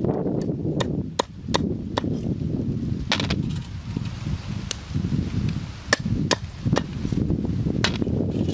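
Kitchen knife chopping on a round wooden chopping board: about a dozen sharp, irregularly spaced strikes over a low rumbling background.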